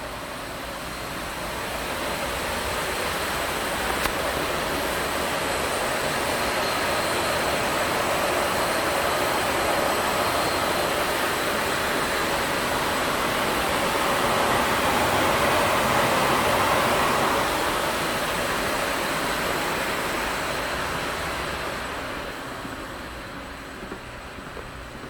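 Rushing air noise that builds over the first few seconds, is loudest a little past the middle, and fades near the end, with a faint high whine above it: the unwanted air noise being complained about.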